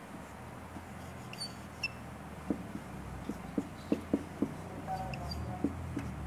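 Marker pen writing on a whiteboard: a run of short taps and scrapes as letters and vowel marks go down, with a few faint high squeaks of the tip.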